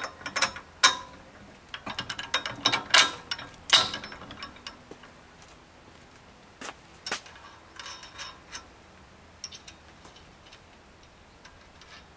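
Bolts and nuts clinking and clicking against the metal bike rack as two bolts are pushed through the upper bar and nuts put on by hand: a quick run of sharp clicks in the first four seconds, then scattered ticks.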